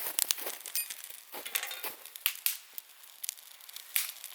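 Irregular crunching and sharp cracking, a quick run of snaps that thins out after the first couple of seconds.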